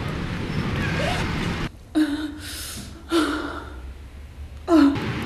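A person gasping in short, sharp gasps, three of them roughly a second apart, each falling in pitch, with a hissing breath in between.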